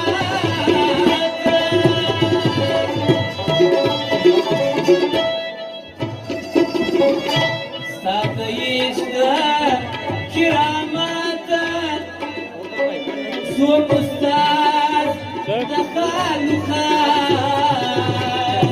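Live Pashto folk song: a man singing over tabla-style hand drumming and steady held notes from an accompanying instrument.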